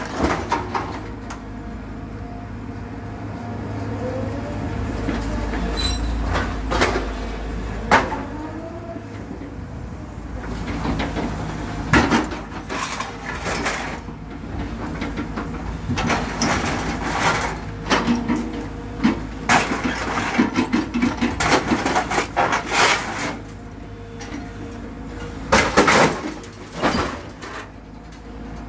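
Excavator fitted with a demolition grapple tearing apart a scrapped vehicle: the diesel engine and hydraulics run with a steady low hum under repeated crunching, clanking and scraping of sheet metal. The metal crashes come throughout and are thickest in the second half.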